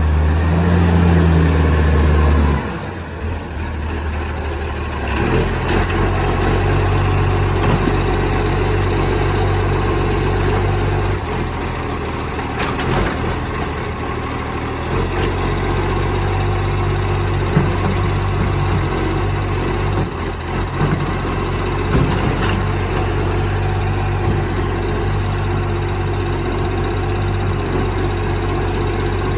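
Garbage compactor truck's diesel engine running loud and raw through a massive exhaust leak. It is louder for about the first two and a half seconds, then settles to a steady lower running note, with a few sharp knocks later on.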